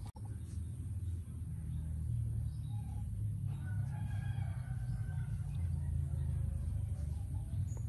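A rooster crowing once, a long held call of about two seconds starting around three and a half seconds in, over a steady low rumble.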